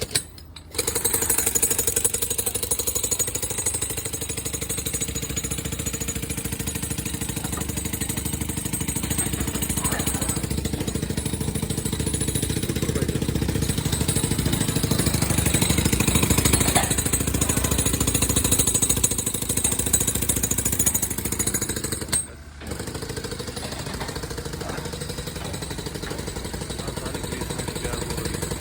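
A jackhammer-type breaker hammering rapidly and continuously. It starts just after the opening and cuts out for a moment about three-quarters of the way through before starting again.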